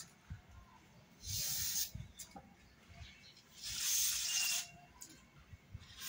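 Aerosol spray can hissing in two short bursts, about a second in and again near the middle, the second a little longer, with faint handling knocks between.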